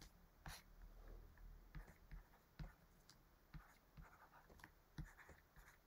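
Faint taps and short scratches of a stylus writing on a tablet, a stroke or tick roughly every half second.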